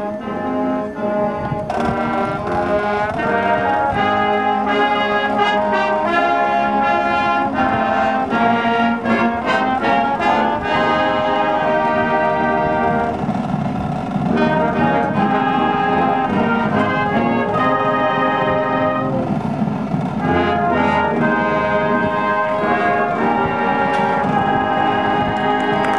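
Marching band playing a brass-led piece, with trumpets and other horns on sustained chords over saxophones, sousaphones and marching drums keeping the beat.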